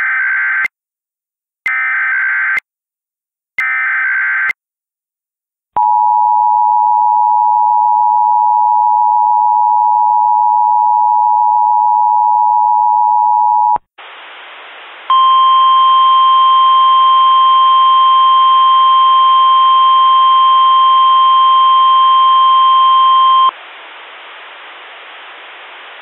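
Emergency Alert System tones: three short bursts of SAME header data about a second apart, then the steady two-tone EAS attention signal for about eight seconds. Static hiss then starts, a single steady NOAA Weather Radio warning tone sounds over it for about eight seconds, and the hiss carries on alone after it stops.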